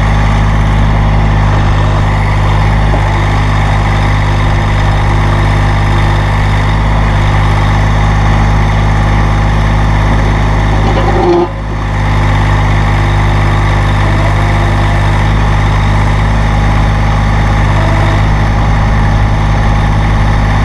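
Massey Ferguson GC-series sub-compact tractor's diesel engine running steadily, with a brief dip in level about eleven seconds in.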